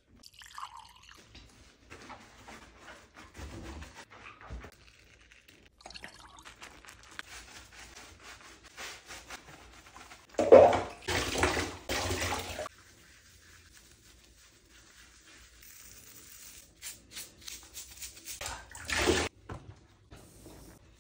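Water splashing and sloshing in a bathtub as a puppy is lathered and scrubbed with a silicone bath brush. There is a louder stretch of water noise lasting about two seconds around halfway through, and another short burst near the end.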